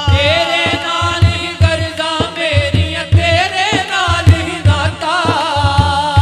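A man singing a Punjabi naat, one long, ornamented line with a wavering pitch, over a steady, repeated low beat.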